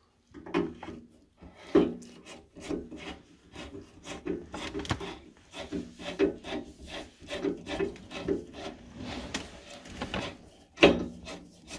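Hand screwdriver turning screws out of the sheet-metal fan venturi flange of a boiler: repeated short grinding strokes, one or two a second, each with a squeaky note as the thread turns in the metal, loudest about two seconds in and again near the end.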